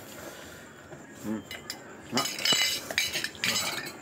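Metal spoon clinking and scraping against a plate while food is scooped up, a cluster of sharp clinks in the second half.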